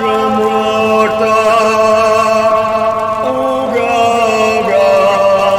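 Dark, droning chant-like music: layered voices holding long low notes that shift pitch every second or two.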